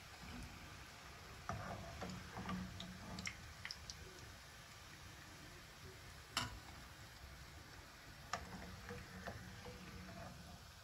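A metal slotted skimmer and fork clicking and tapping against a nonstick frying pan as fried sesame dough rolls are lifted out of the hot oil: a scatter of light clicks, the sharpest about six seconds in.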